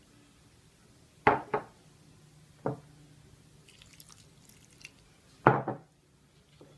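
Knocks against a glass baking dish as marinade ingredients go in: a quick double knock, a single knock, then another double knock near the end. Faint light clicks fall between them over a low steady hum.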